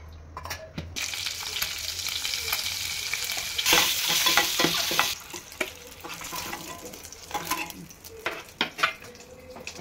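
Whole boiled eggs frying in hot oil in a steel kadai, sizzling loudest about four seconds in, with a steel spoon clinking and scraping against the pan as they are turned. The sizzle then dies down, leaving fainter sizzling and scattered spoon clinks.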